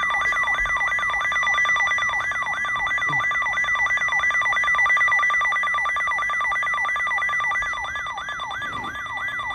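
Weather radio alert signal before a flash flood warning: a steady high alarm tone, of the kind of the NOAA Weather Radio warning alarm tone, sounding together with a falling siren-like sweep that repeats about three times a second.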